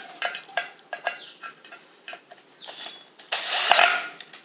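A non-genuine DeWalt-style 24 V cordless drill-driver driving a self-drilling screw into a galvanized steel square tube. A few light clicks and taps come first, then about three seconds in the drill runs in one short, loud burst of under a second.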